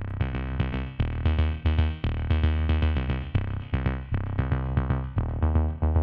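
Background electronic music with a steady drum-machine beat and synthesizer chords.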